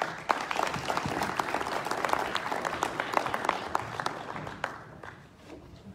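Audience applauding: many hands clapping, starting suddenly and dying away over the last second or two.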